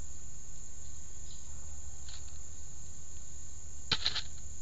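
Cantaloupe halves set down in a shallow aluminium pan, giving a quick cluster of knocks and clatter near the end, over a steady high insect drone.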